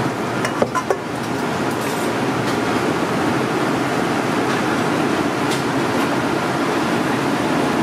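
Breaded dumplings deep-frying in a pot of hot oil: a steady sizzle and bubbling, with a few light clicks about half a second to a second in.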